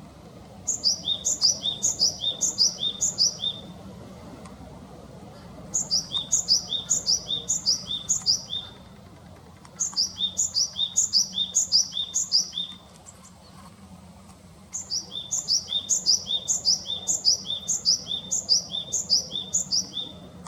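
Japanese tit singing: a quick series of high, downward-sliding notes in bouts of about three seconds, four times, with short pauses between.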